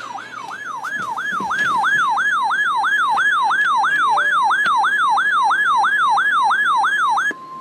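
Weather alert radio's electronic siren alarm, a loud rising-and-falling whoop repeating about three times a second, sounding as a warning comes in. Near the end it cuts to a steady single tone.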